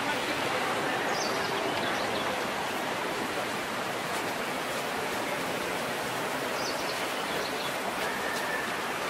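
Steady, even outdoor hiss of street ambience, with brief high bird chirps about a second in and again around seven seconds in.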